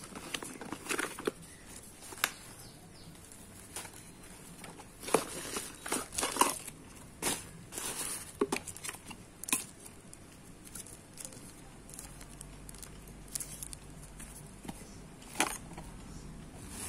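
A cardboard retail box and its paperboard inner tray being handled and pulled apart: scattered rustles, scrapes and taps of paperboard, busiest around five to seven seconds in, with one sharp tap near the end.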